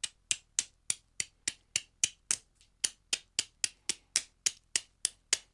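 A steady run of sharp clicks, about three and a half a second, with one skipped beat near the middle.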